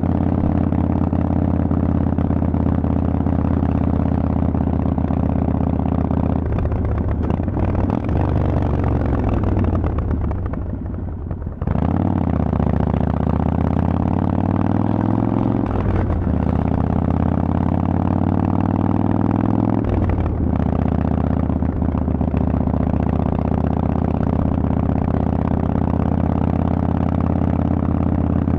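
Harley-Davidson Forty-Eight's 1200 cc V-twin running loud through Vance & Hines exhaust pipes, holding a steady note at first. About a third of the way in the throttle closes and the sound drops away briefly. The engine then pulls again with its pitch rising, cut by two gear changes a few seconds apart, and settles back into a steady cruise.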